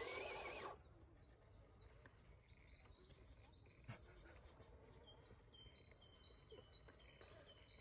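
Near silence outdoors, with faint high bird chirps repeating in short notes through the second half.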